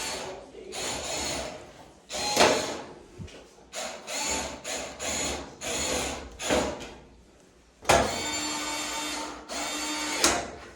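Cordless power screwdriver whirring in a string of short runs, then one longer run near the end, driving screws, with a few sharp clicks in between.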